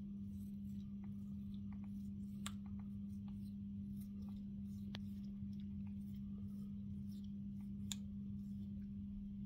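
African grey parrot biting and chewing apple: scattered small crisp clicks and crunches from its beak, the sharpest about two and a half and eight seconds in. A steady low hum runs underneath.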